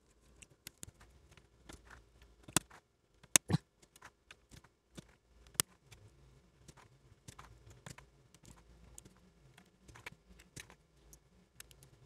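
Gateron Green mechanical key switches being pressed into a Keychron K8 keyboard's hot-swap plate: a steady scatter of small, irregular plastic clicks and snaps, with a few louder sharp clicks a few seconds in.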